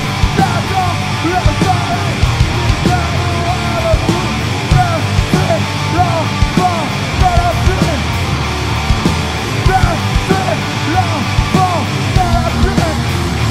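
Screamo band playing live: loud distorted electric guitars over bass and drums, with a high lead line of short notes that bend up and down in a repeating pattern.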